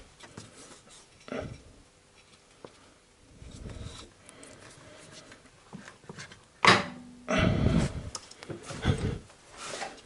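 Inner CV joint of a Honda Civic driveshaft being pushed into the transmission, with light knocks and rubbing of metal parts. After several seconds a single sharp metallic click, the circlip snapping into its groove as the joint seats home, followed by more rubbing and a couple of softer knocks.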